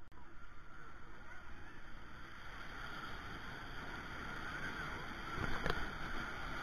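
Small sea waves breaking and washing up the shore in a steady hiss of surf, with a short knock about five and a half seconds in.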